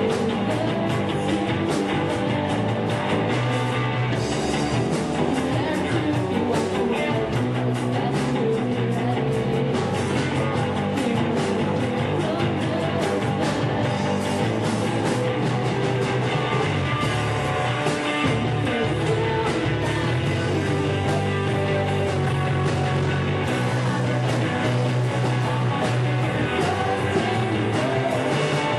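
Live rock band playing an original song: a female vocalist singing over drums, electric guitar through a Fender Blues Deluxe amp and a Music Man StingRay bass.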